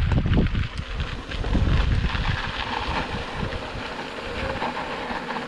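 Mountain bike rolling down a steep, loose descent: tyres crunching and skittering over gravel in a steady hiss of small ticks. Wind buffets the chest-mounted action camera's microphone with a heavy rumble in the first two seconds or so.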